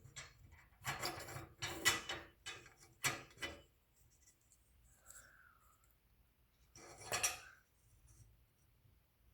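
Rubbing and scraping as a Chamberlain garage door opener's drive belt is worked by hand through the gap behind the idler pulley mount. The noises come in several short bouts, go quiet midway, and come back once near the end.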